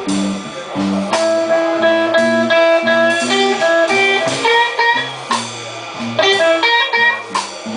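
Electric guitar playing a slow blues solo of held and bent notes over a live band.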